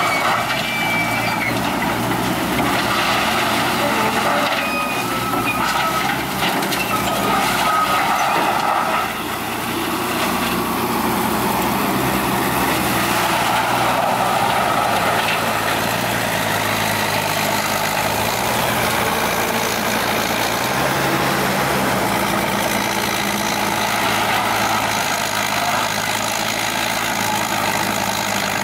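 Heavy diesel machinery running steadily under load: an excavator feeding scrap wood into a wood grinder. The grinder's shredding gives a dense continuous noise over the engine drone, and a few short high squeals come through near the start and again around six to eight seconds in.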